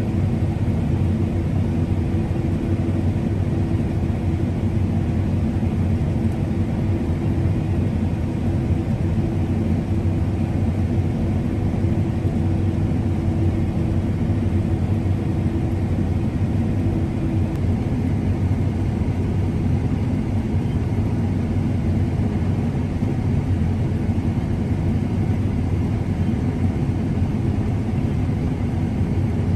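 A combine harvester running steadily during wheat harvest, a constant engine rumble with a hum; one higher hum fades out a little past halfway.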